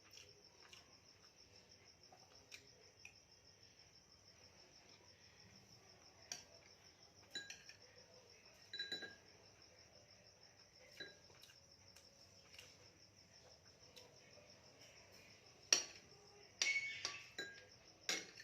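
Crickets trilling steadily in the background, a fast even pulsing, with scattered clinks of cutlery against dishes; the clinks come closer together and grow louder near the end.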